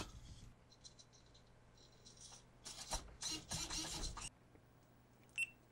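Faint handling noise: scratchy rubbing and light rattling of a GoPro and its small plastic servo pan/tilt mount being moved by hand, bunched together about three seconds in, with a short click near the end.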